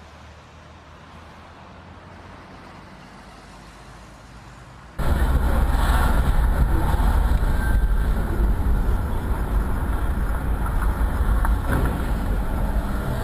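Faint steady hiss, then about five seconds in an abrupt cut to loud, steady motor-vehicle rumble and road noise.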